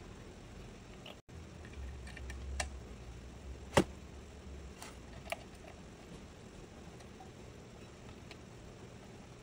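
A few small sharp clicks and taps of plastic cable connectors and wiring being handled and pressed onto a mini PC's motherboard, the loudest about four seconds in, over a faint low hum.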